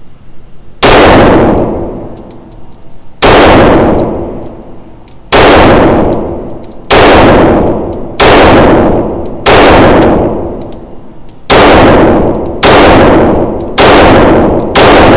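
Ten shots from a 9mm Staccato C2 Duo pistol firing Federal 115-grain full-metal-jacket rounds, each report ringing out in an indoor range. The shots come slowly at first, about two seconds apart, then quicken to roughly one a second near the end. The pistol cycles through all ten without a malfunction.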